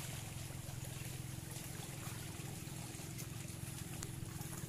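Faint steady outdoor background of shallow sea water washing among shore rocks, under a low steady hum.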